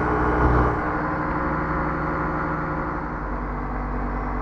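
Rotax 503 two-stroke twin engine of a Quad City Challenger II ultralight running steadily in flight, heard from inside the cockpit. It gets a little quieter about a second in and its pitch shifts slightly about three seconds in, as the plane slows on a gentle descent.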